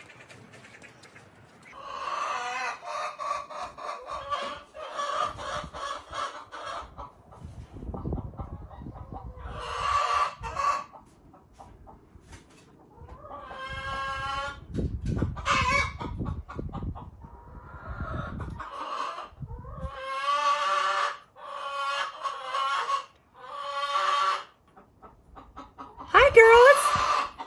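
Hen singing her egg song: runs of loud, repeated squawking calls, a hen's announcement that she has just laid an egg. A louder call near the end rises sharply in pitch.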